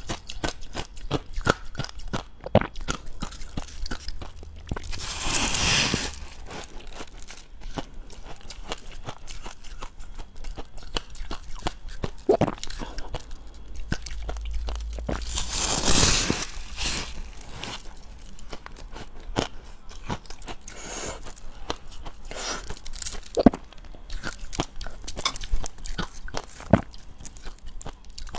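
Close-miked biting and chewing of dry, powdery freezer-frost ice, a dense run of rapid crunches. Two longer, louder crunches come about five seconds in and again about sixteen seconds in.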